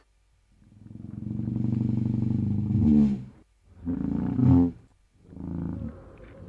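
A goose call time-stretched to a few times its length, dropping it to a low, drawn-out, monster-like voice. It comes as three long calls with short gaps, the first the longest.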